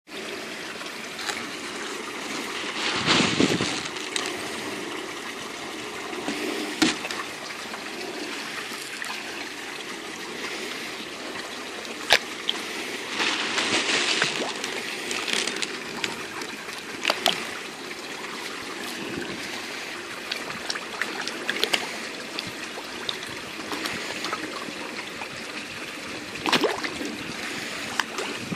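Water trickling steadily into a pond, with louder splashing at the surface where carp rise to take floating feed pellets, most strongly about three seconds in, again around thirteen to fourteen seconds and near the end, plus a few sharp clicks.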